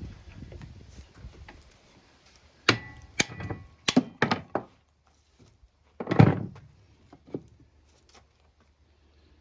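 Hammer blows on a piece of oak used as a drift to knock a 6205 ball bearing off a wood lathe shaft. A quick run of sharp knocks about three seconds in, then a heavier blow about six seconds in and a last light one.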